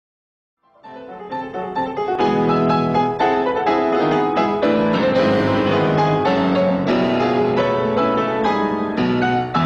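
Piano music: a fast passage of many quick notes, starting from silence just under a second in and quickly rising to full level.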